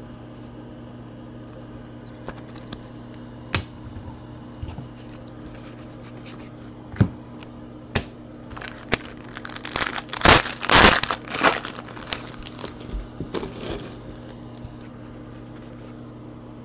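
A foil wrapper on a Panini Contenders Draft Picks football card pack is torn open, with loud crinkling from about ten to twelve seconds in. Light clicks and taps of cards being handled come before it.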